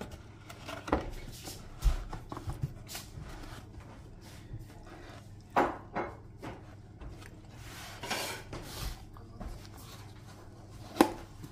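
Cardboard takeaway boxes being handled and their flaps folded open: rustling and scraping of the card, with a few sharp knocks.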